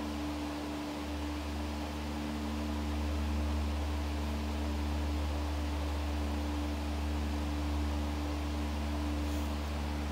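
Steady low hum with a couple of constant higher tones over an even hiss, unchanging throughout.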